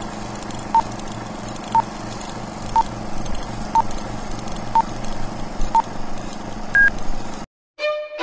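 Film countdown-leader sound effect: a steady projector-like rattle and hiss with a short beep every second, six at one pitch and then a seventh, higher beep. It cuts off about seven and a half seconds in, and violin music starts just before the end.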